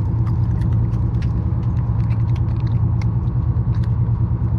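Boat engine running with a steady low rumble, with a few light clicks scattered over it.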